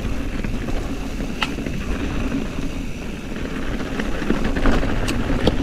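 Mountain bike rolling fast down a dirt singletrack: a steady rumble of tyres and wind over the microphone, with scattered sharp ticks and rattles from stones and the bike.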